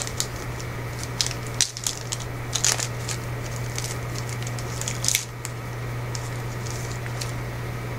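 Crinkling and tearing of a trading-card pack wrapper and the handling of the cards inside, as short rustles and clicks over the first five seconds or so. A steady low hum runs underneath.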